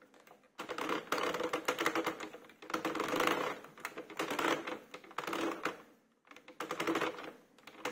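Circular knitting machine worked slowly a stitch at a time: its plastic needles clicking and rattling in short bursts of a second or two, with brief pauses between them.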